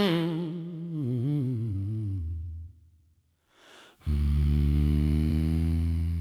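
A deep male voice humming in AI-generated dark blues music. A wavering hum slides down and fades out about two and a half seconds in, and after a short silence a low, steady hummed note starts about four seconds in.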